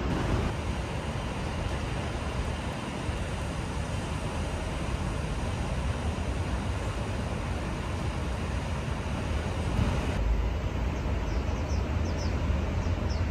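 Steady city traffic rumble, heaviest in the low end, with no single vehicle standing out. The background changes abruptly about ten seconds in, and a few short high chirps come near the end.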